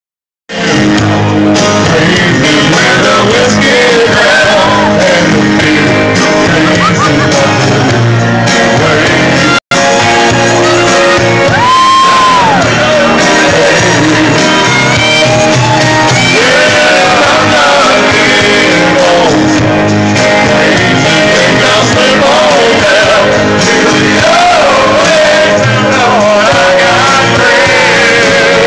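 A group of men singing and shouting along to a karaoke backing track played loud through PA loudspeakers. The sound cuts out for an instant just before ten seconds in.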